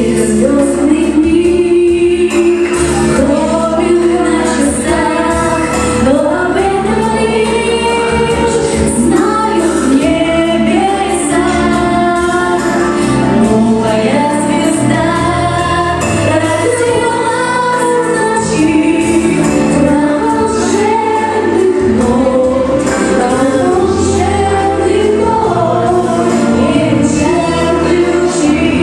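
A song with voices singing over instrumental backing and a steady beat.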